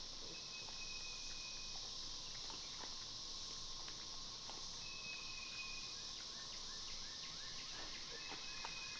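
Insects calling steadily outdoors, with three flat, drawn-out whistles and a quick run of short rising chirps from birds, over faint scattered ticks.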